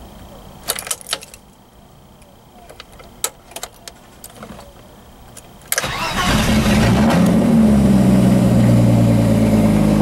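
BMW E30 engine starting after years of sitting: a few clicks from the key and ignition switch, then about six seconds in it catches and fires, revs rise briefly and settle into a steady idle.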